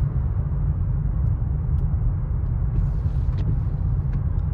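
Steady low rumble inside a car's cabin as it drives slowly over a wet, icy road, with a few faint ticks.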